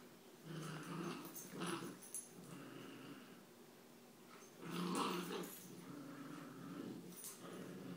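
Puppies growling in play, a run of low rumbling growls with short gaps between them. The loudest comes about five seconds in.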